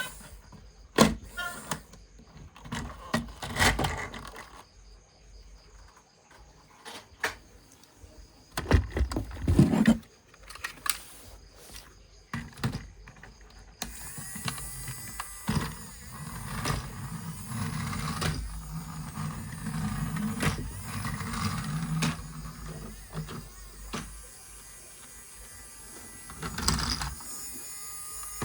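Plastic toy vehicles being handled, with scattered clicks and knocks. About halfway through a small electric motor starts and runs steadily.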